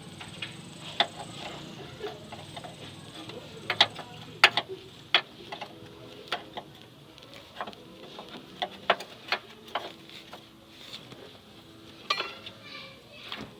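Irregular sharp metallic clicks and clinks of hand tools at work on a car, some with a short ring after them.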